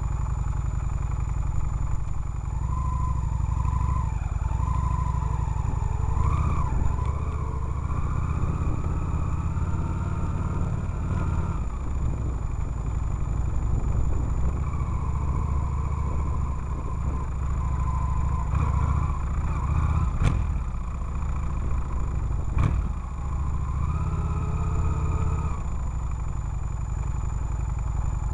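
Motorcycle engine running under way, picked up by a camera mounted on the bike, its note wavering a little. Two sharp knocks come in the second half, about two seconds apart.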